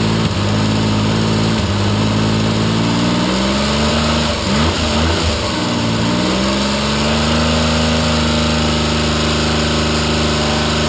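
Triumph Trident T160's three-cylinder engine running, its revs rising over the first few seconds, wavering briefly around the middle, then climbing again and holding steady at higher revs.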